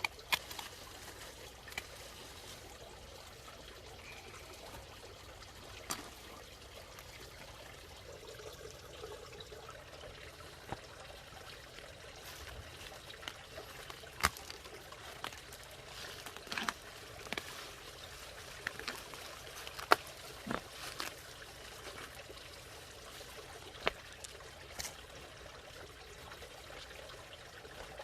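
Water bubbling and trickling steadily, with scattered short, sharp clicks and taps now and then.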